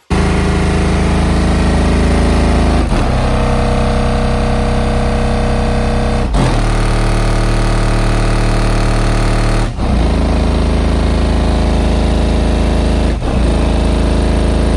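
Very loud bass-heavy music played through a car audio system built on Avatar STU 15-inch subwoofers and a 20,000-watt Deaf Bonce amplifier, heard from outside the vehicle. The low notes change every three to four seconds, with a brief break at each change.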